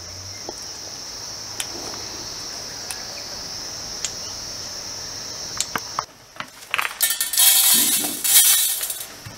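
Steady high-pitched chirring of crickets, with a few faint clicks, that stops suddenly about six seconds in. Then uncooked rice grains rustle and patter loudly as hands heap them onto a metal plate.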